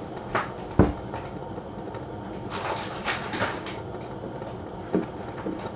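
Kitchen handling sounds: a light knock, then a heavier thump just under a second in, a rustling scrape about halfway through, and another knock near the end.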